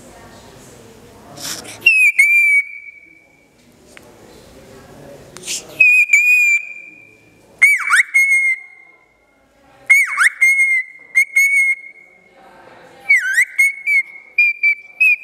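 Male cockatiel whistling its courtship song at its reflection in a mirror: a series of clear whistled phrases, mostly held near one pitch, several swooping sharply down and back up, each lasting a second or two with short pauses between.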